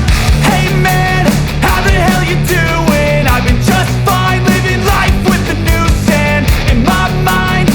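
Loud rock music with a steady beat, heavy bass and a sung melody.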